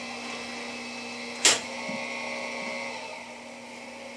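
Homemade variable-speed power feed on an Atlas 12-inch lathe driving the cross feed in reverse at a slow feed, with the spindle stopped: a steady mechanical hum with a light gear whine. A sharp click comes about a second and a half in.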